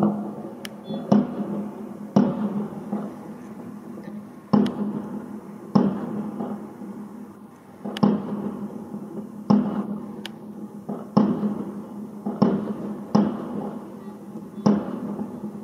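Aerial fireworks bursting: a string of about ten sharp bangs, irregularly spaced one to two and a half seconds apart, each trailing off in an echo over a steady low rumble.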